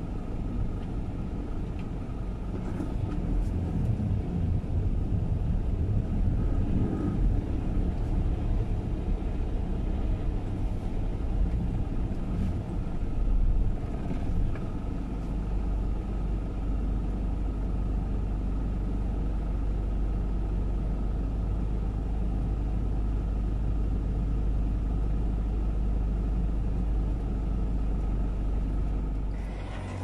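A vehicle driving on a rough dirt road, heard from inside the cab: engine running and tyre and road rumble, a steady low rumble.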